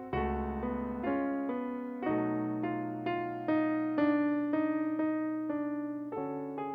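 Background music: a piano melody, notes struck about twice a second and each dying away.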